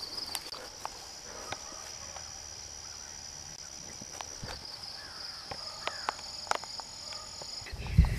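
Steady high-pitched insect drone with scattered faint clicks. Near the end come loud low thumps and rumble as the handheld camera is jostled.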